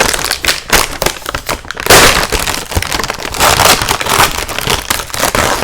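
Plastic cookie wrapper crinkling and crackling sharply as it is torn open, loudest about two seconds in.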